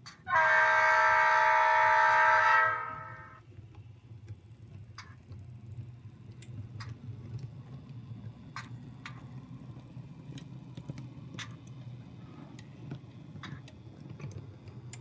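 The H0 scale SD40-2 model locomotive's sound decoder blowing a multi-chime diesel air horn once, held for about two and a half seconds, through the model's small speaker. After that a low steady hum of the model's engine and drive, with scattered sharp clicks of the wheels over the rail joints.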